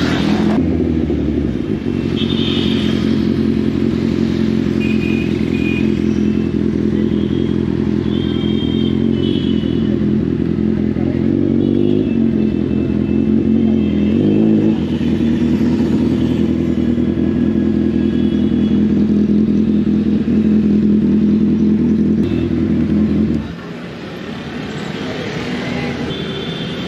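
Kawasaki Z800 inline-four motorcycle engine running at low speed, heard from the rider's seat, with two brief rises and falls in pitch around the middle. The engine sound drops away sharply near the end as the bike pulls up.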